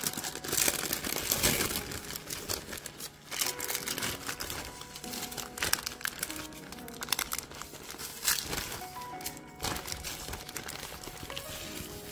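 Baking parchment crinkling and rustling as it is pulled open off baked fish fillets, with music playing in the background.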